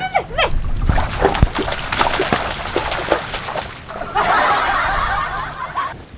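Splashing and sloshing of feet wading quickly through shallow muddy water, then a dense rustling about four seconds in as they push up through leafy bushes on the bank.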